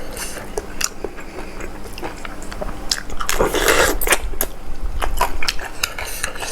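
A person chewing and biting food close to the microphone, with many wet clicks and smacks and a louder noisy burst about three and a half seconds in.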